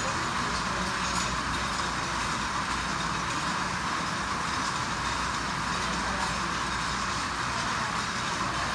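Overhead chain conveyor running steadily, carrying boxed bottles in hanging carriers along its curved rail.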